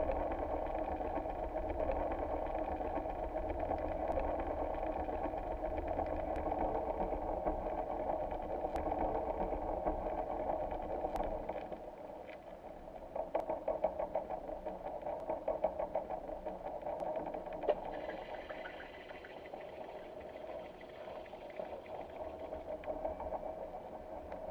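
Boat engine running steadily, a low mechanical drone with scattered faint clicks. The deep rumble drops away about halfway through and a quicker pulsing comes in.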